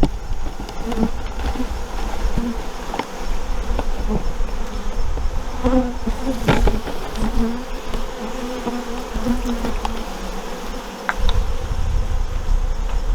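Honeybees buzzing around an open hive, a steady swarm drone with individual bees' buzzes rising and falling as they fly close. A couple of sharp knocks sound midway and near the end.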